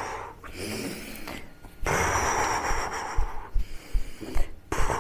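A woman's pretend snoring: rhythmic, exaggerated breaths in and out, the loudest a long breathy exhale from about two seconds in lasting over a second, with a few low bumps underneath.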